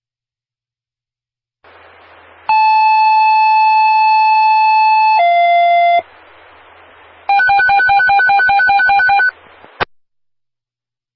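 Fire dispatch paging tones over a scanner radio: the channel opens with a hiss, then a long steady tone steps down to a shorter, lower second tone, as in a two-tone sequential page. After a pause of hiss comes a rapidly pulsing alert beep at about five beeps a second, and the transmission ends with a squelch click.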